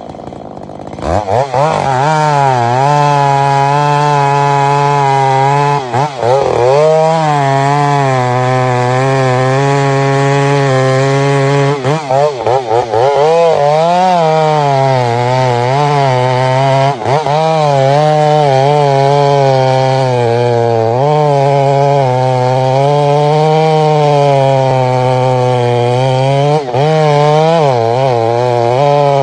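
Chainsaw cutting through a large tree trunk. It comes up to full throttle about a second in, and its pitch sags and recovers as it bites into the wood, with a few brief dips where the throttle lets off.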